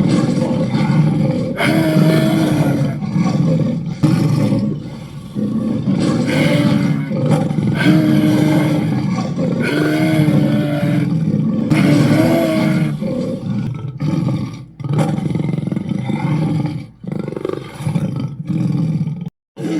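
Dragon roar sound effects: a run of long, growling roars with a bending pitch, one after another with short breaks between them.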